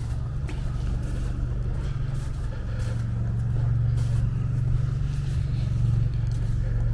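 A motor vehicle engine running steadily as a low hum, swelling slightly partway through.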